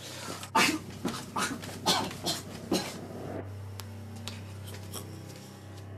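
About six short, sharp sounds, roughly two a second, as a neck is stabbed repeatedly with a hand-held pointed tool, followed by a low steady hum.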